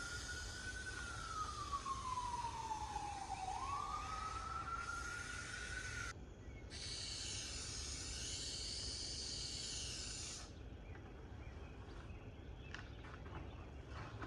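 Aerosol can of spray contact cement spraying in two long bursts: the first, about six seconds, carries a whistle that dips in pitch and rises again; after a short pause, a second burst runs about four seconds.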